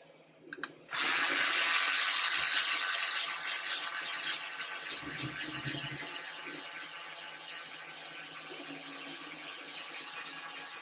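Small cordless electric screwdriver whirring as it drives a 60 mm screw into 3D-printed plastic parts. It starts abruptly about a second in and runs steadily, easing slightly in level after the first few seconds.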